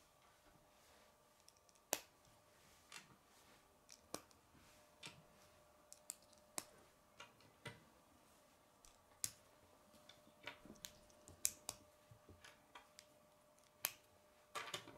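Plastic K'nex parts clicking as short green rods are snapped into a white eight-way hub connector: separate sharp clicks, roughly one a second, with a quick cluster of rattling clicks near the end as more pieces are handled. A faint steady hum runs underneath.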